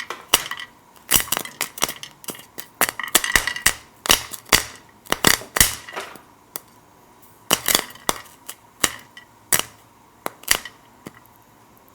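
Popcorn kernels popping: irregular sharp pops, sometimes several in quick succession, with a short lull a little past the middle, over a faint steady tone.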